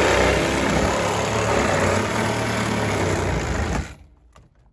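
Cordless reciprocating saw cutting through the steel roof pillar of a Honda Civic, running hard for nearly four seconds and then stopping abruptly as the cut goes through.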